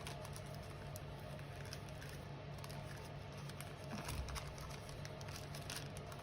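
Faint, scattered light clicks and small rustles of small parts being handled, over a steady low hum.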